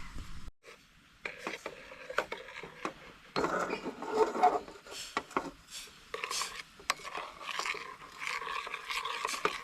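Scraping, rubbing and light clicking knocks of a cooking pot being shifted about on a portable camp gas cooker.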